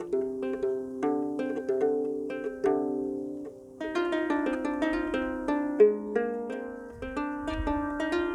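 Double diatonic harp played by hand: a steady run of plucked notes ringing on. After a brief dip about three and a half seconds in, the playing turns fuller with several strings sounding together. A low rumble comes in near the end.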